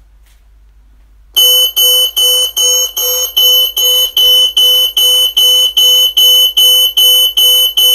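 NEO Coolcam Z-Wave Plus siren alarm sounding: a loud, rapid, high-pitched beeping of about three beeps a second, starting about a second and a half in.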